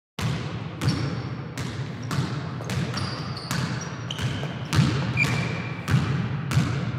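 A basketball being dribbled, bouncing roughly twice a second in an uneven rhythm, with a few short high squeaks between the bounces.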